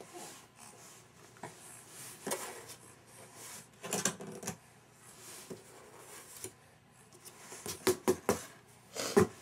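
Scattered light taps and rustles of a cardboard box as a baby shifts and is handled inside it, with a quick run of sharper clicks about eight seconds in and another just after nine.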